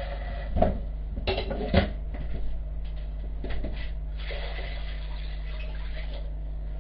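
Metal pots clanking a few times, then water poured from a smaller pot into a large enamel stockpot over the ribs, for about two seconds near the end.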